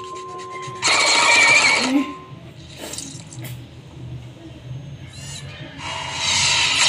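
Metal spoon scraping and clinking in a stainless steel pot, with two loud scraping stretches, one about a second in and one near the end.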